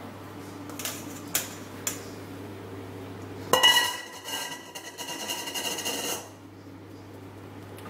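Stainless steel bowl and mesh sieve clinking as flour is tipped into the sieve: a few light clinks, then about three and a half seconds in a sharp metallic clang that keeps ringing, with small rattles, for a couple of seconds while the sieve is worked over the bowl.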